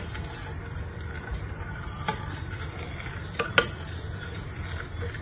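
Metal spoon stirring chocolate rice porridge in a glass saucepan, clinking against the glass once about two seconds in and twice in quick succession about a second later, over a steady low hum.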